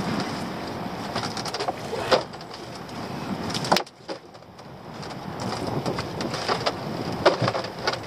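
Lobster pots knocking and rattling against each other and the boat's deck as they are lifted and stacked: a run of clicks with a couple of sharper knocks, over wind buffeting the microphone.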